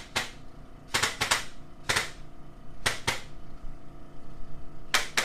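Chiropractic adjusting instrument delivering light taps: a series of sharp clicks, some in quick pairs, about one a second.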